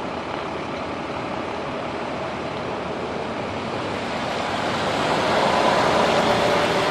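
Steady rumble of idling emergency vehicles, growing louder about five seconds in, with a faint steady hum rising out of it near the end.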